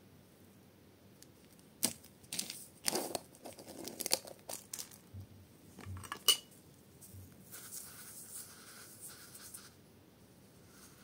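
Clear plastic jar of tiny white beads being handled: a run of sharp plastic clicks and taps as the lid is worked off, the sharpest about six seconds in. Then a soft gritty rustle for about two seconds as a fingertip presses into the beads.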